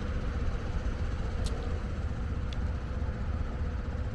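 Large mobile crane's diesel engine running steadily, a low rumble with a faint steady hum. Two short high-pitched clicks come about a second apart, midway through.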